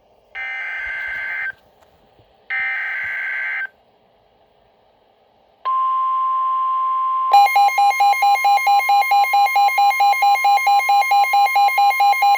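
Emergency Alert System tornado warning tones: two one-second bursts of screeching digital data tones (the SAME header), then about five and a half seconds in a steady, high warning tone starts, and is joined about seven seconds in by a rapidly pulsing alarm beeping about four times a second.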